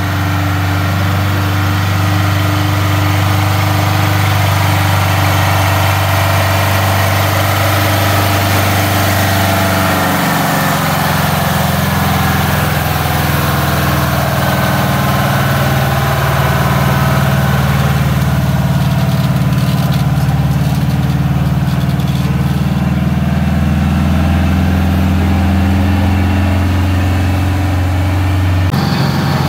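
Heavy truck diesel engines running at low speed close by as the trucks creep past, a steady low engine note. The note shifts about ten seconds in and again near the end.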